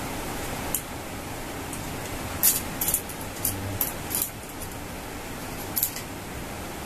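Small metal parts clicking and scraping while a screw on a phone and mic mount is worked with a coin: about six short sharp clicks spread through, over a steady hiss.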